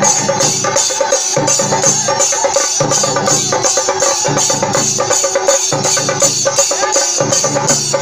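Chenda-style barrel drums, several beaten with sticks together, playing a loud, fast rhythm whose phrase repeats about every second and a half.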